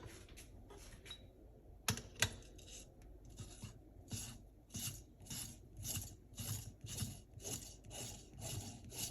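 Ground coffee in an espresso portafilter basket being worked with a distribution tool in place of tamping: soft, even scraping strokes about twice a second, after two sharp clicks about two seconds in.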